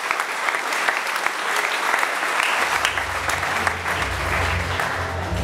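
Audience applauding, a dense crackle of many hands clapping. From about halfway through, deep bass music fades in underneath as the clapping thins.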